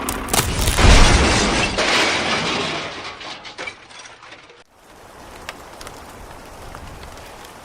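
A loud crashing, clattering rush of noise that peaks about a second in, fades over the next couple of seconds and then cuts off suddenly, leaving a quieter steady background.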